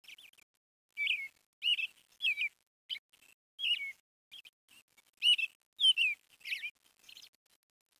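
A bird chirping: a quick series of short, warbled notes with brief gaps between them, fading out near the end.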